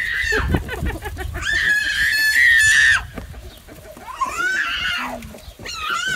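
Rooster crowing repeatedly: long, drawn-out, harsh calls, one held about a second and a half that cuts off sharply, followed by shorter rising calls.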